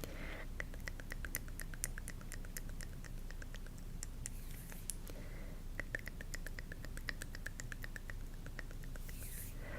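ASMR tapping: rapid, light clicks several times a second over a steady low background hiss.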